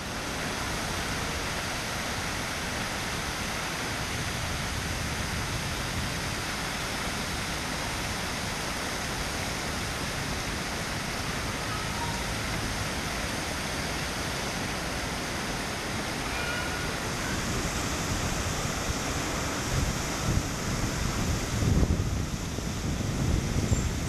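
Fountain jets splashing steadily, an even rush of falling water. From about twenty seconds in, wind buffets the microphone with low rumbles.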